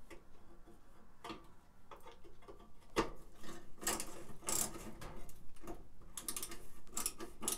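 Hand screwdriver turning screws into the metal electrode-holder plate of a Suburban NT-30SP RV furnace burner: irregular metallic clicks and short scrapes, the sharpest about three seconds in, with a second run of clicks near the end.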